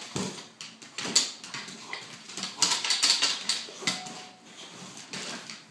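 Scuffling and clattering on a hardwood floor as a boxer puppy pounces on and bites at a dust mop being pushed around: quick clicks of claws and knocks of the mop, with a longer stretch of scraping and swishing about halfway through.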